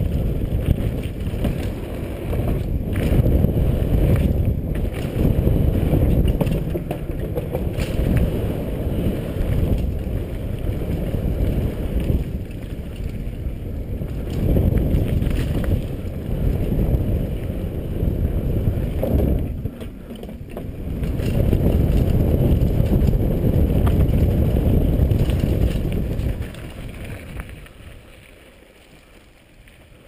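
Downhill mountain bike running fast over a dirt trail, heard through a GoPro: a heavy rumble of wind buffeting and tyres on dirt, with the bike knocking and rattling over bumps. The noise dies away about four seconds before the end.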